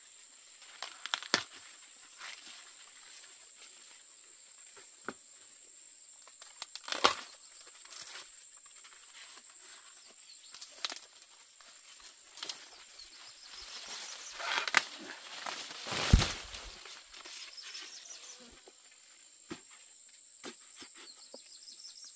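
Ears of corn being snapped off their stalks and dropped into a bucket among rustling corn leaves: scattered sharp snaps and rustles, busiest and heaviest about 15 to 16 seconds in, under a steady high insect drone.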